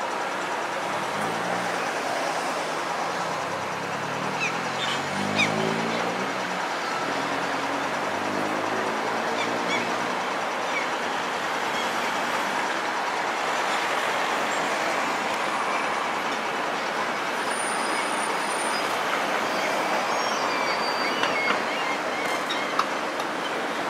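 Liebherr R 936 crawler excavator working: its diesel engine runs steadily under load, the pitch rising and falling a few times in the first ten seconds as the machine works, with a few sharp knocks.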